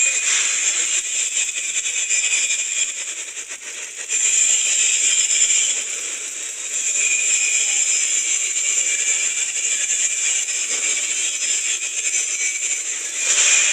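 Electric arc welding: the arc crackles and sizzles steadily, with a short drop around three to four seconds in before it picks up again.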